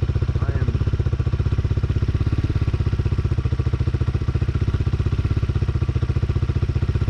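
Tao Tao TBR7 motorcycle engine idling steadily, with a rapid, even exhaust pulse.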